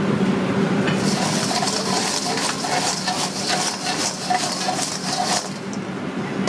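French fries being tossed and scraped around in a stainless steel mixing bowl, a rustling, crackly clatter that starts about a second in and stops near the end, over a steady kitchen hum.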